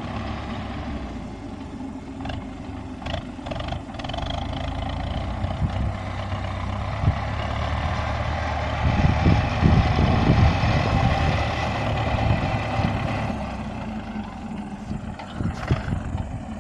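MTZ-80 tractor's four-cylinder diesel engine running under load while it drives a Perugini TT-220 flail mower cutting grass. It gets louder from about halfway on as the tractor comes close, and there are a few short sharp knocks.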